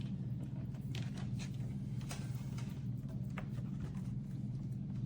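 Scattered light clicks and taps from handling a mechanical keyboard and plugging in its cable, over a steady low hum.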